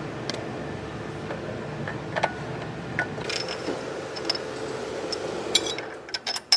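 Metal engine parts clicking and tapping as they are handled during timing-system reassembly, over a steady hum. A quick run of sharper clicks comes near the end.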